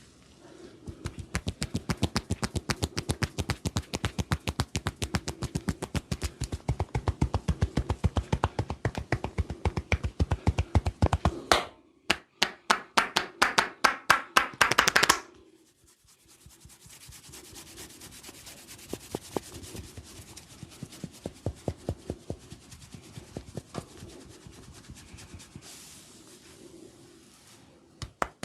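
Hands rapidly tapping and patting a person's head during a massage, an even quick patter for about ten seconds. This is followed by a few seconds of louder, sharper slaps, then softer rubbing of the scalp with scattered light taps.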